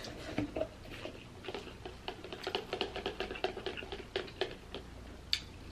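Plastic straw worked around in the domed lid of a plastic boba smoothie cup as the cup is handled: a fast run of small plastic clicks and taps, with one sharper click near the end.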